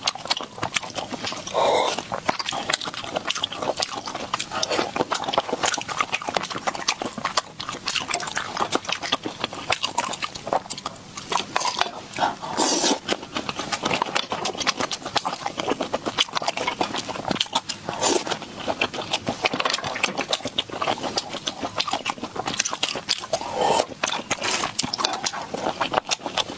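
Close-miked sucking, slurping and wet chewing of field snails, a dense run of quick wet clicks and smacks with a few louder sucks along the way.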